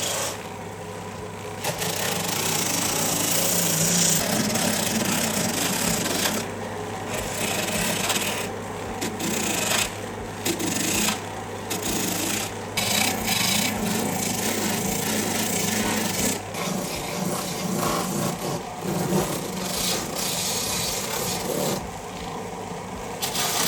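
Rotary wire brush on a power tool scuffing the edge of a rubber truck inner tube: a continuous rasping scour broken by several short pauses. A low steady hum runs underneath and stops about two-thirds of the way through.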